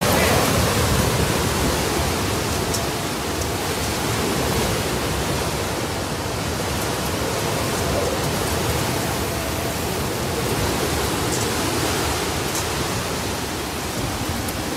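Hurricane-force wind and heavy rain, a loud, steady rushing noise with no break.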